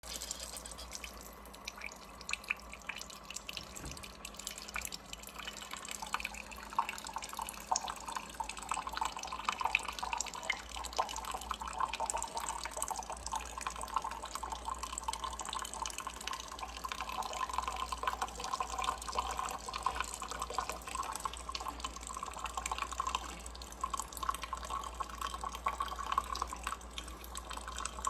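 Liquid trickling and dripping steadily, with many small drips.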